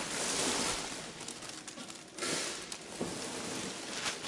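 Plastic sheeting rustling and crinkling close to the microphone, in two stretches, the second starting about two seconds in.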